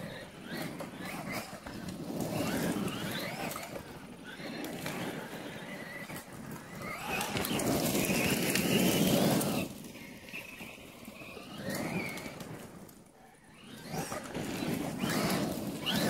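Traxxas Maxx RC monster truck's brushless electric motor whining up and down in pitch with the throttle, over the noise of its tyres on gravel, in several bursts with the longest and loudest about halfway through.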